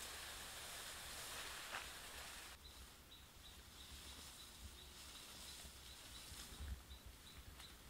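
Faint outdoor ambience in grass and brush. A rustling hiss fills the first couple of seconds, then stops abruptly. After that a faint high chirp repeats at an even pace, about two or three times a second, over a low rumble.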